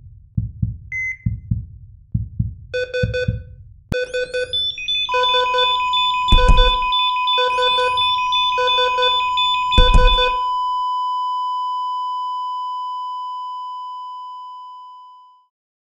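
Sound-design heart monitor: heartbeat thumps with a single beep every two seconds, then rapid alarm beeping with two rising whines and two heavy thuds. It ends in one continuous flatline tone that is left alone after about ten seconds and fades out.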